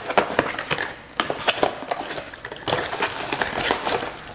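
Unpacking a parcel: a cardboard box being handled and torn open, then a clear plastic bag crinkling, as a run of irregular clicks and rustles.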